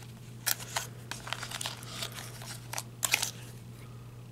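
Scissors snipping through the plastic-coated wire twist ties that hold an action figure to its cardboard tray, with the tray and packaging rustling in the hands: a series of irregular crisp snips and crinkles, busiest about half a second in and again about three seconds in.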